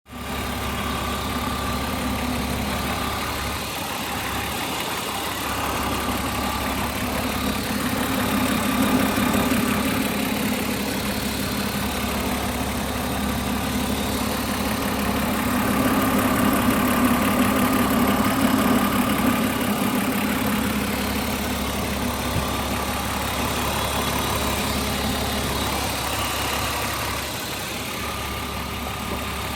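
BMW E36 323i's 2.5-litre straight-six engine idling steadily, with a fast, regular ticking running through the engine note.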